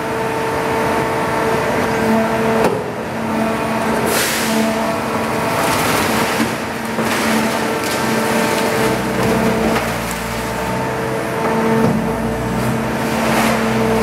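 Scrap baler running with a steady mechanical hum while aluminium scrap is dropped into its hopper and compacted, with several loud metallic crashes and clatters as the scrap falls and is crushed. A deeper rumble joins about two-thirds of the way through.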